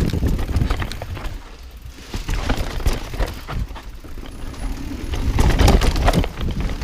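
Mountain bike rattling and clattering down a rough dirt trail, with rapid clicks from the bike and a low rumble from tyres and wind on the microphone. It eases off for a couple of seconds in the middle and grows louder again near the end.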